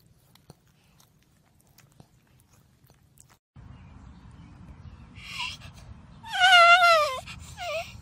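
A small terrier whining in several high, wavering cries, loudest just under a second long about two-thirds of the way in. Before them, only a few faint clicks.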